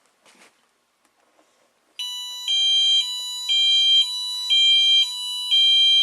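Wheelock fire alarm sounding its high-low tone: after about two seconds of near silence it starts, switching between a high and a low pitch every half second.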